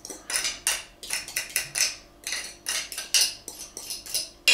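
A metal fork scraping and clinking against a glass bowl, about three quick strokes a second, as beaten eggs are scraped out into a saucepan. The loudest clink comes at the very end.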